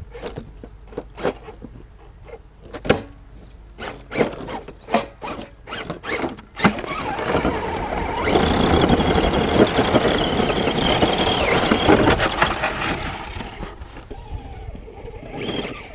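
Axial SCX10 RC crawler truck's electric motor and drivetrain. First a run of sharp clicks and knocks, then about seven seconds of continuous running with a high whine, dying down near the end.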